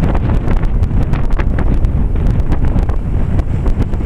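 Wind buffeting the microphone: a loud, steady low rumble crackling with many short sharp clicks.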